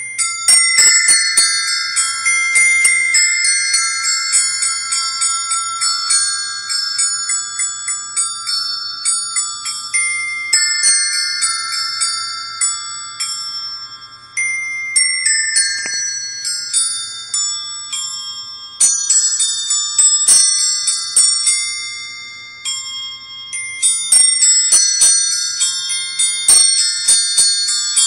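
Caroling Christmas Bells decoration: a set of small metal bells struck one after another, chiming out a carol tune note by note. There are short breaks about fourteen and twenty-three seconds in, and the set is working properly.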